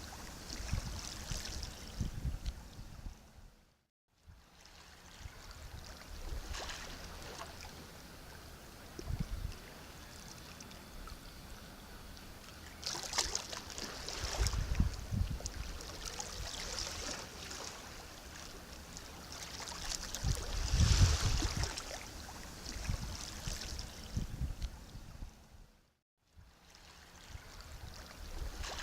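Sea waves washing in surges, each swell a rush of hissing water with low thuds beneath it. The sound cuts to silence twice, about four seconds in and again near the end.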